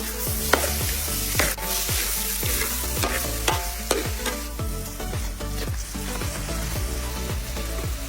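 Food sizzling in a hot pot or pan while a spoon or spatula stirs it, scraping at short, uneven intervals.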